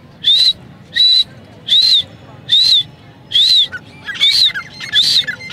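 A man whistling through his lips at caged partridges to set them calling. He gives a run of seven short notes, each rising and then falling, about every 0.8 seconds.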